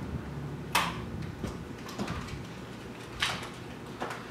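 Hands handling computer parts inside a desktop PC case: a few sharp plastic-and-metal clicks and knocks, the loudest about a second in, with a low hum fading under them.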